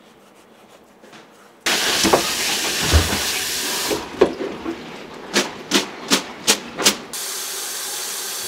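Kitchen knife cutting thin slices of raw beef on a wooden cutting board, with a run of five quick knocks of the blade on the board about a third of a second apart. Around the cutting, a loud steady hiss starts and stops abruptly twice.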